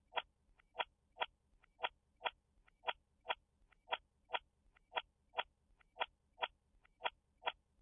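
A clock ticking near the microphone, about two ticks a second in an uneven tick-tock rhythm, with fainter clicks between the main ticks.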